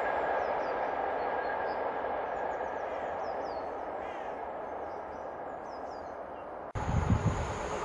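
Rail noise of a train running away along the main line, slowly fading, with small birds chirping high over it. Near the end the sound cuts abruptly to the louder, low rumble of a Class 66 diesel freight train approaching.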